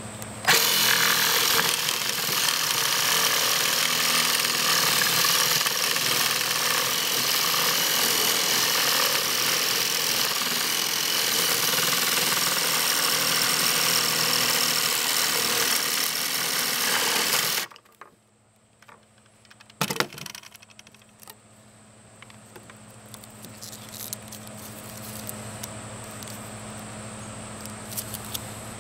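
Electric jigsaw cutting through a plastic tube, running steadily for about seventeen seconds and then stopping abruptly. A single sharp knock follows a couple of seconds later.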